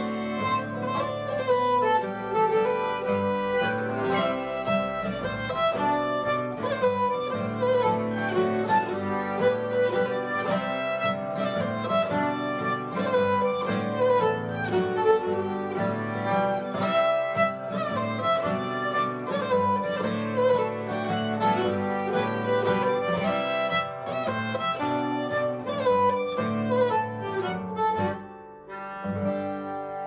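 A nyckelharpa (Swedish keyed fiddle) bowed over a strummed acoustic guitar, playing a polska, a Swedish dance tune in three. Near the end the tune finishes and the last chord rings out and fades.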